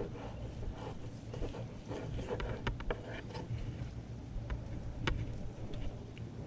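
Fillet knife cutting and scraping through mahi fillets: irregular short scrapes and light knocks over a steady low hum.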